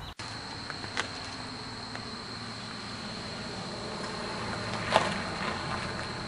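A steady, high-pitched insect drone, with a minivan approaching up a driveway, its sound growing slowly louder. A sharp click comes about a second in and a louder snap about five seconds in.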